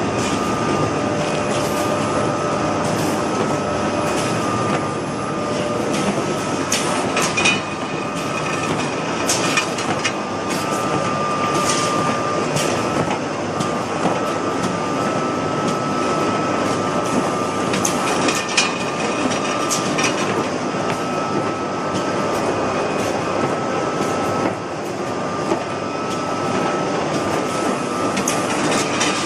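Automatic corrugated carton folder-gluer running: a steady mechanical clatter of belts and rollers with a thin steady whine, and scattered sharp clicks and knocks as the cardboard blanks pass through.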